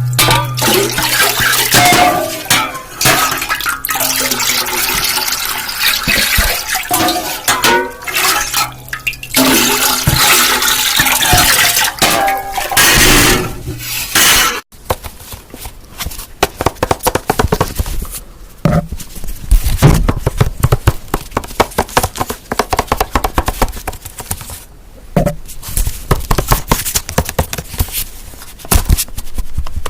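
Close-miked ASMR object sounds. For about the first half, a dense rushing, crackling noise. It cuts off suddenly about halfway, and after that come rapid, irregular tapping and clicking on objects.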